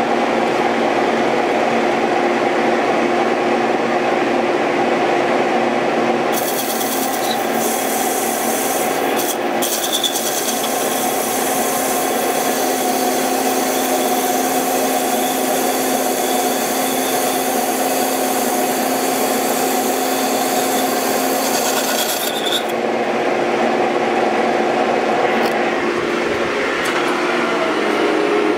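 1930s turret lathe running on a VFD with a steady whine. From about six seconds in until about twenty-two seconds in, a dull carbide insert facing a very hard, high-grade steel workpiece adds a loud, harsh hissing scrape, then the cut stops and the lathe runs on alone.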